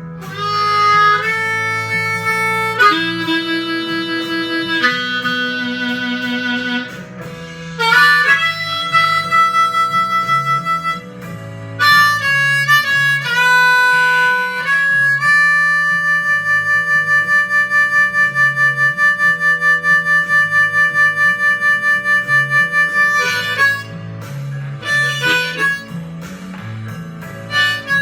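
Harmonica solo over guitar accompaniment. It plays a string of held notes, and in the middle one note is held for about eight seconds, pulsing several times a second.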